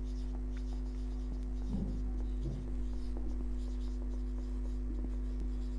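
Felt-tip marker writing on a whiteboard: faint strokes and small taps as letters are drawn, over a steady low hum.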